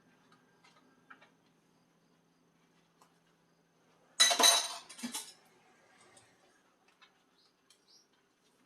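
Dishes and cutlery being handled during washing-up: light clinks, then two loud clattering bursts about halfway through.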